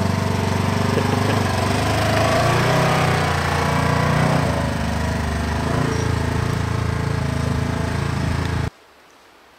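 Polaris General XP side-by-side's engine running as the vehicle pulls away and drives off up a woods trail, its pitch shifting as it moves off. The sound cuts off abruptly near the end.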